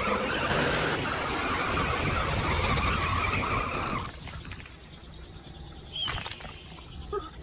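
Cartoon sound effects: a loud rushing, scraping noise that stops suddenly about four seconds in, followed by a click and a few short chirps near the end.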